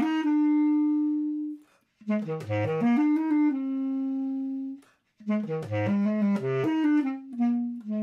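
Solo basset horn playing three short phrases, each a quick run of notes that settles on a long held note, the held notes stepping lower each time, with brief pauses between.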